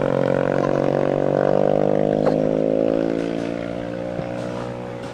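A motor vehicle's engine running with a steady drone that slowly drops in pitch and fades away over the last couple of seconds, as it moves off.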